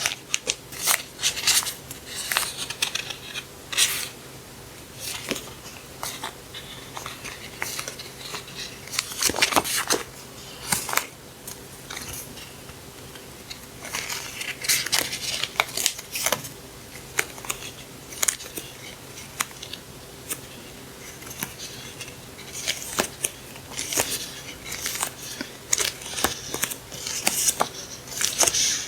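Hands handling paper stationery and packaging: irregular crinkles, rustles and small sharp taps and clicks, with a faint steady hum underneath.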